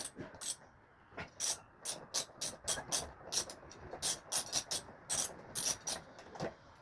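Ratchet wrench with a socket clicking in short runs of a few sharp ticks a second, turning a bolt on a washing machine's drum assembly.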